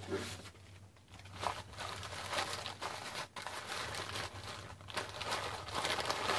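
Gift wrapping crinkling and rustling on and off as it is handled and unwrapped by hand, with a faint low hum underneath.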